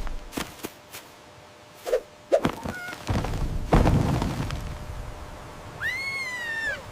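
A few short knocks and thuds, with a heavier thump and low rumble about four seconds in, then near the end one animal call about a second long that rises and falls.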